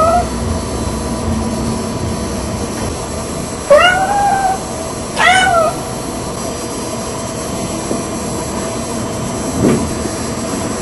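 Red tabby Persian cat meowing at a closed door to be let in: the tail of one call at the start, then two drawn-out meows about four and five seconds in, which her owners hear as 'Daddy?'. A steady hiss lies under it all.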